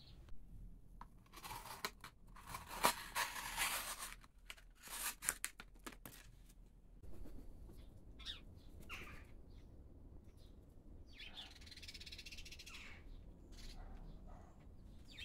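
Abrasive paddles of a Wicked Edge guided knife sharpener stroking along a steel blade: four or five rasping strokes of about a second each in the first half. After that comes a steady low outdoor background with a few short bird chirps.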